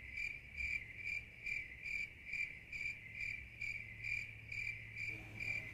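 Cricket chirping: a high, regular chirp repeating about twice a second.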